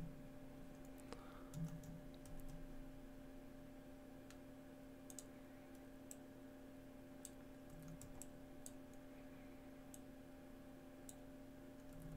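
Faint computer keyboard and mouse clicks, scattered sparsely, over a steady low hum.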